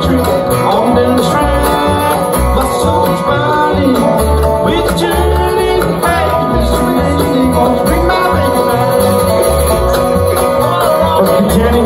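A live bluegrass band playing: mandolin, acoustic guitar, dobro and upright bass, with the bass marking a steady beat under the plucked strings.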